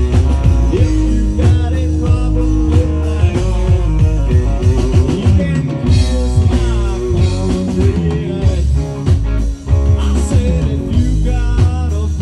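Live country rock band playing, with electric guitars over a drum kit.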